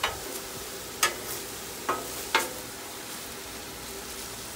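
Shredded steak sizzling steadily on a Blackstone flat-top griddle while a metal spatula scrapes and knocks against the steel plate four times in the first two and a half seconds, shaping the meat into a square.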